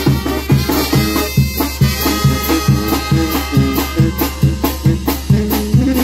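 Live brass band music: a sousaphone playing bass notes about twice a second on a steady beat, with trumpet and horns over it, and timbales, a bass drum and cymbals keeping time.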